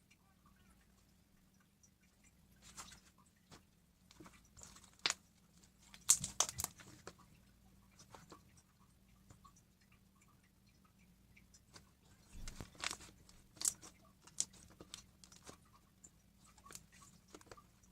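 Slime being handled, making irregular crackles and little pops in several short clusters, with quiet gaps between them.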